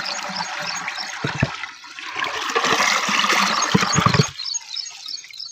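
Canal water pouring through a concrete pipe outlet, with dull knocks as a concrete gate plate is worked into the pipe mouth. The water noise cuts off suddenly about four seconds in as the outlet is shut.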